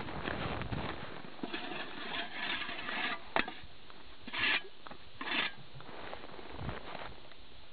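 Boots crunching over snow-covered ice, then a sharp knock and two short scrapes of a metal shovel blade across the ice surface.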